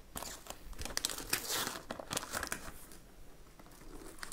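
Gift-wrapping paper crinkling in irregular crackles as it is handled and peeled back from a box, thinning out near the end.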